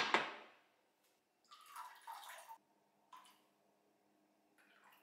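A four-cup nonstick pan set down on a glass induction hob with a sharp clack, then clear liquid poured into it from a plastic bottle in splashing spurts, the longest about a second, with two shorter ones after.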